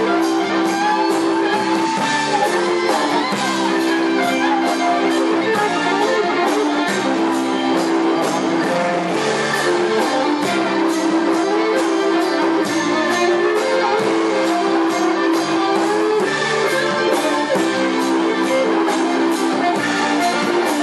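Live electric blues band: a Les Paul-style electric guitar played over bass and a steady drum beat.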